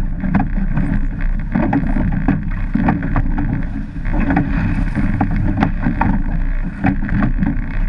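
Surf lifesaving boat in the surf: wind and water make a loud, steady low rumble on the boat-mounted microphone, with irregular sharp knocks and slaps throughout.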